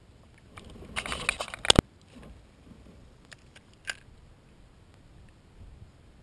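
Handling noise on a kayak as a small fish on the line is dealt with: a brief scuffle about a second in that ends in two sharp knocks, then a few light clicks.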